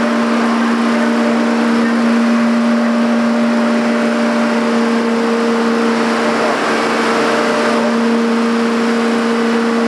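Steady machine hum over a constant hiss, unchanging in pitch; a second, higher hum grows stronger about four and a half seconds in.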